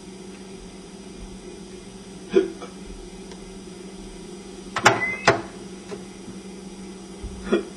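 A boy hiccupping, with four short, sharp hiccups at uneven gaps, two of them close together about midway. This is the chronic hiccups of the skit. A steady low hum runs underneath.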